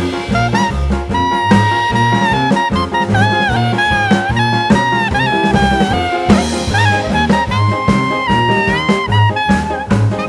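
Background music: upbeat swing jazz with a horn melody over walking bass and drums.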